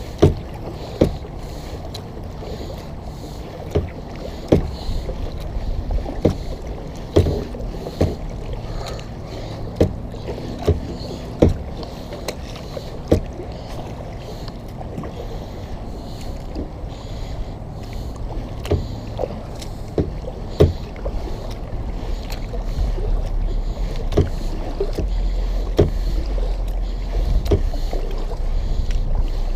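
Kayak being paddled: paddle strokes through the water with sharp knocks every second or two, and a low wind rumble on the microphone building over the last third.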